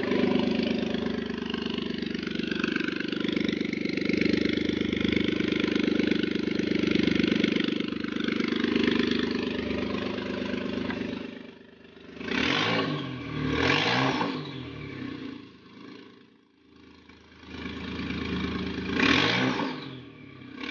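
Suzuki F6A three-cylinder turbo engine, swapped into a Jimny, idling steadily for about eleven seconds. It then settles quieter and is revved in three short blips, dropping back to idle between them.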